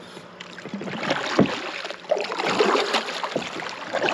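Kayak paddle strokes: the blades dip and splash through the water in repeated strokes that grow louder about two seconds in.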